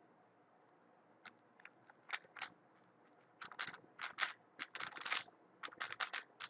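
Speed cube (Weilong WRM 2019) being turned by hand: sharp plastic clicks of its layers, a few scattered at first, then a fast flurry from about halfway in.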